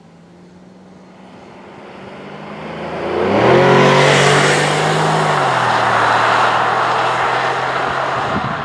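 2011 Chevrolet Traverse LTZ's 3.6-litre V6 through its stock dual-tip exhaust, accelerating. The engine note builds over about three seconds and rises in pitch, stays loud for several seconds, then eases and fades near the end.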